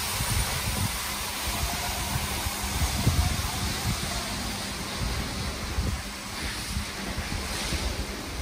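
Istobal M'NEX 22 rollover car wash gantry working, a steady rushing of water spray and brushes with a faint low hum.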